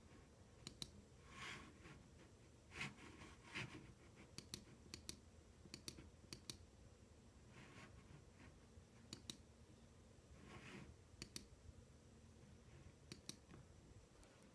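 Faint computer mouse clicks, many in quick pairs, scattered every second or so, with a few softer scuffs between them.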